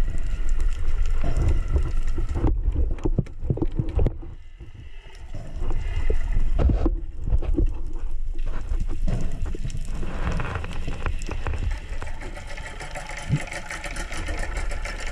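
Underwater sound picked up by a diver's camera as he swims down with a pole spear: muffled water rush and knocks against the camera, dropping quieter about four seconds in, then a steadier hiss filled with fine clicking.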